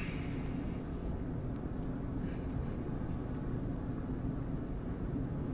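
A steady low hum that stays even throughout, with no distinct events.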